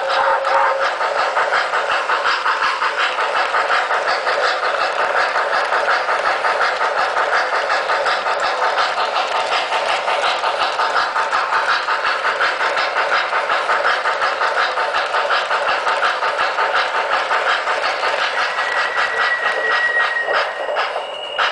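Sound system of an MTH O-gauge Santa Fe 4-8-2 L-3 Mohawk model steam locomotive chuffing in a quick, even rhythm as the train runs, mixed with clatter from the wheels on the track.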